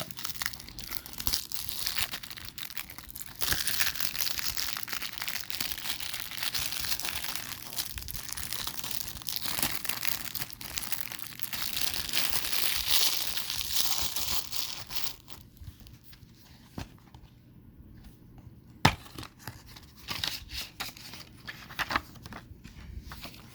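Plastic shrink-wrap being torn and peeled off a DVD case, crinkling steadily for about fifteen seconds. After that comes quieter handling with scattered clicks and one sharp click about nineteen seconds in.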